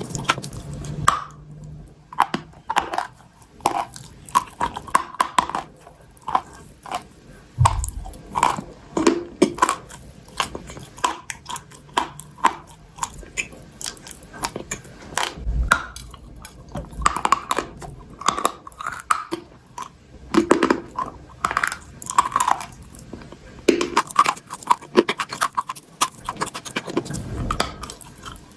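Close-miked chewing and crunching of chalk and clay: a dense, irregular run of sharp crackles and snaps.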